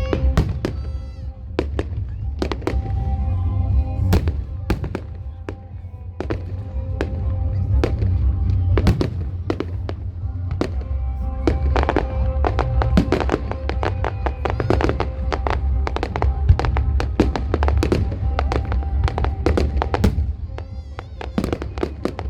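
Fireworks bursting in rapid, irregular succession, dozens of sharp bangs with crackle, over music with a heavy bass.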